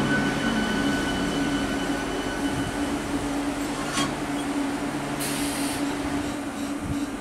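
Three-phase Medha EMU electric multiple unit standing at the platform, its onboard electrical equipment humming steadily with a faint high whine that fades out partway through. A sharp click comes about four seconds in, and a short hiss follows soon after.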